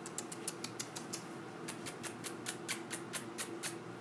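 A quick run of sharp, dry clicks made by a person, about five a second with a short pause a little past a second in, the kind of clicking used to draw young puppies' attention. A faint steady hum lies underneath.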